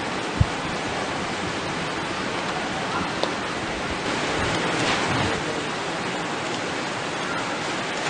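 Steady rushing of a rocky mountain stream, with a soft thump about half a second in.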